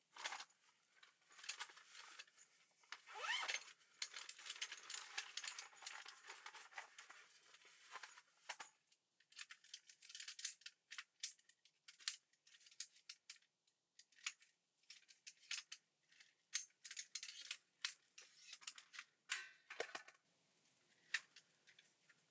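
Quiet close-up handling sounds: rustling and scraping for the first several seconds, then a run of separate light clicks and taps.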